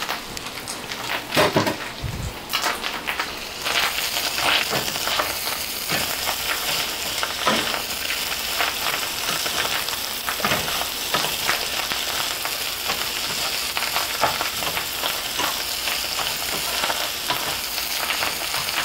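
Rui fish roe with sliced onions and green chillies sizzling in oil in a nonstick frying pan, with the scrape and tap of a wooden spatula stirring and tossing it. The sizzling gets louder about four seconds in.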